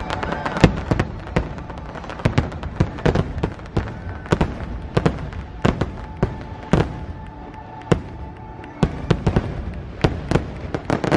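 Aerial fireworks shells bursting overhead: a fast, irregular string of sharp bangs and crackles, several a second at times.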